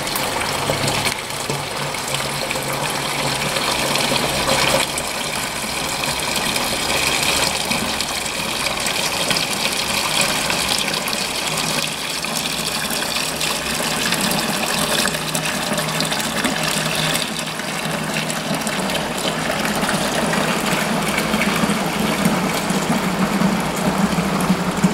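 Homebrewed witbier wort running steadily from a hose into a plastic fermenter bucket, splashing and foaming as it falls, which aerates the wort.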